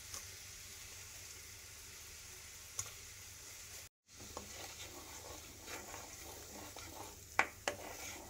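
Tamarind and jaggery chutney mixture sizzling steadily in a kadai. A few sharp knocks stand out from the hiss, the loudest two close together near the end. The sound cuts out briefly about halfway through.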